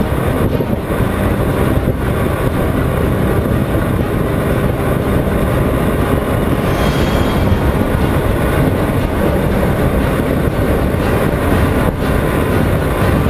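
A Honda CBR 125R's small single-cylinder engine running at highway speed under steady, heavy wind and road noise, loud and unbroken throughout.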